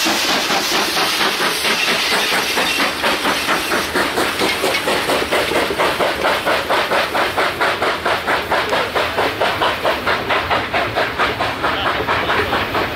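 South African Railways steam locomotive running with a fast, even beat over a hiss of steam; the hiss is strongest at first and the beat grows more distinct.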